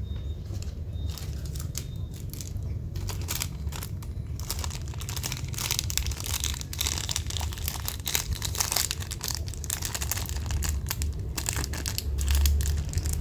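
Packaging crinkling and crackling as it is handled, in many small irregular crackles over a low steady hum.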